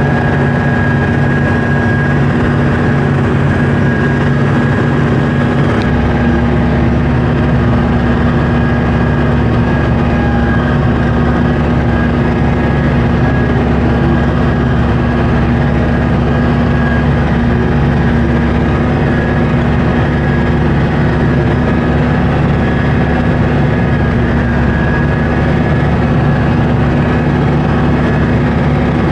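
Kubota M9000 tractor's diesel engine running steadily under load while pulling a haybine that is cutting hay, with a constant drone and a thin steady whine. The low rumble grows stronger about six seconds in.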